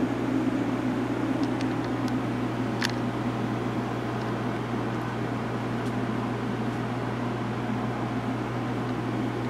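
Electric fans running in a grow room: a steady whirr with a constant low hum underneath, and a few faint ticks a couple of seconds in.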